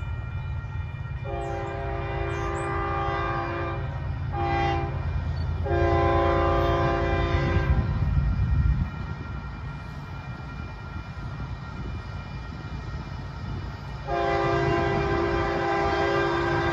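Union Pacific freight locomotive's air horn sounding from an approaching train: a long blast, a short one and another long one, then a further long blast starting near the end. A steady low rumble runs underneath.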